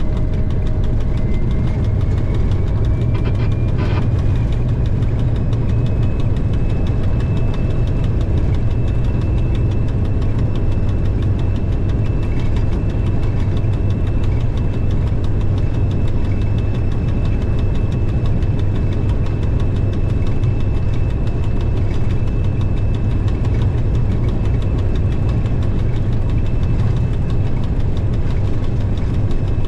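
TEM2 diesel locomotive's six-cylinder PD1M diesel engine running steadily, heard from the cab as a loud, even low drone. A faint high whine rises slightly in the first few seconds and then holds steady, and a single click comes about four seconds in.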